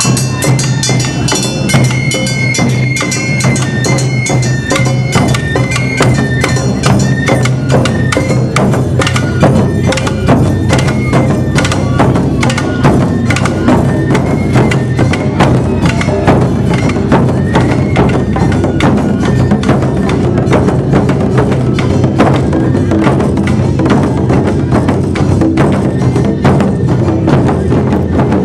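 Awa Odori festival band playing live: fast beating on barrel-shaped taiko drums and the clanging of a small brass hand gong (kane), with a high melody over the rhythm.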